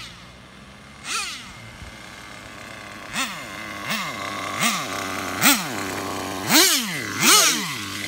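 Traxxas Jato 3.3's two-stroke nitro engine blipped in short revs, each a quick rise and fall in pitch, about seven in all. The revs come more often and get louder toward the end as the car closes in.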